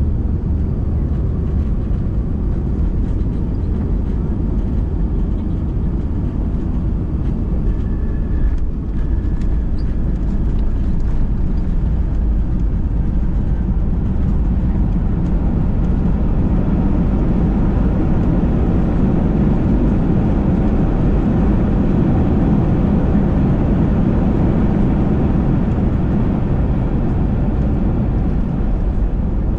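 Airbus A319 airliner landing, heard from a cabin seat over the wing: a steady rush of engine and air noise, which swells from about halfway in and stays loud to the end as the plane rolls out with its ground spoilers up and the engines spool up to slow it.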